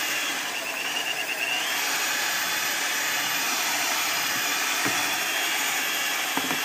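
Power drill spinning a Pork N Pull shredder attachment through a cooked beef roast, a steady whirring as the meat is pulled apart.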